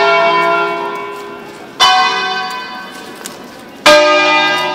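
Bizzozero-cast church bells of a six-bell ring in A sounding a preset solemn peal. One bell is still ringing from a stroke just before, then two more strokes come about two seconds apart, each from a different bell. Each rings on with many overtones and slowly fades.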